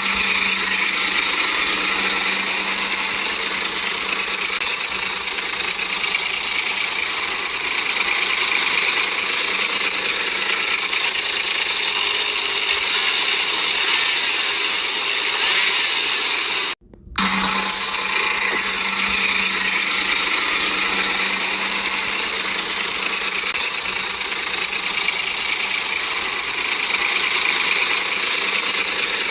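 Ford Explorer 4.0 V6 engine running, with a steady metallic rattle and tapping from the timing chain, a sign of a loose chain tensioner and worn guide. The sound breaks off for a moment a little past halfway, then carries on the same.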